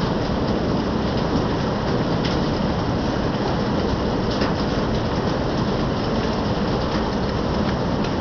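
Steady heavy rain falling, with a few sharper ticks now and then.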